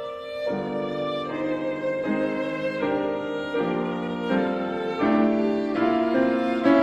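Violin and Steinway grand piano playing together: a bowed violin line over piano chords, the notes and chords changing roughly every second, growing louder toward the end.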